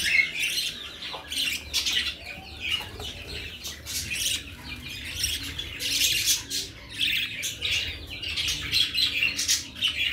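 Budgerigars chattering in rapid, high-pitched squawks and chirps that come in spells.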